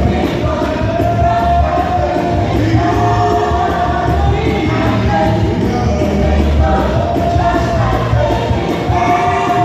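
Youth choir singing a gospel song over instrumental accompaniment with a strong bass and a steady beat.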